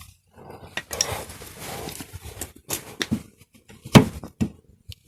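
Plastic door handle trim being pressed and forced onto a BMW interior door handle: rustling and scraping, then several sharp knocks and taps, the loudest about four seconds in, as it fails to click into place.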